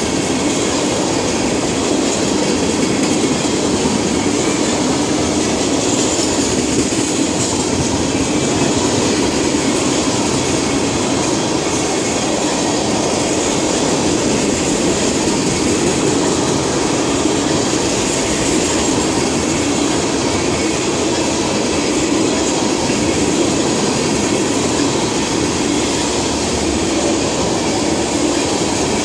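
Freight train of tank cars rolling by, its steel wheels running on the rails in a steady, loud noise.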